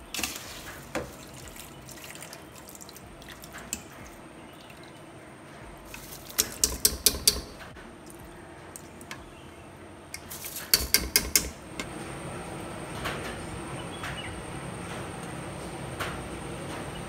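Soaked rice being scooped out of a steel bowl of water and tipped into boiling stock in an aluminium pressure cooker: water sloshing and splashing, with two bursts of quick, sharp metal clinks, a few seconds apart, against the pot and bowl.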